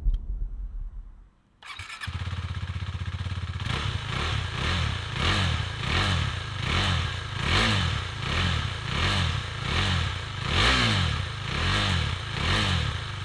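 KTM 390 Duke's single-cylinder engine running through its stock exhaust, idling briefly and then blipped on the throttle about a dozen times in an even rhythm, roughly every 0.7 seconds, from about four seconds in.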